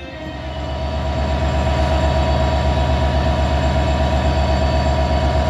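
Stationary CFR locomotive 64-0974-7 running steadily at the head of its train. It makes a steady hum with a fast, even throbbing low underneath, growing louder over the first second and a half, then holding.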